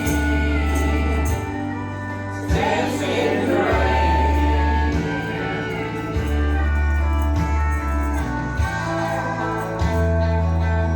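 Music with singing over long held bass notes that change every second or two.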